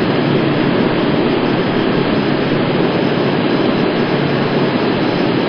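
Twin turbofan engines of an Airbus A330 at takeoff thrust during the takeoff roll: a steady, even rushing noise heard from across the airfield.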